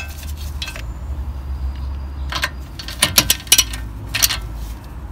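Ratchet wrench and socket working on a brake caliper's guide bolts: sharp metal clinks and a few short bursts of ratchet clicking, the busiest about three seconds in. A steady low hum runs beneath.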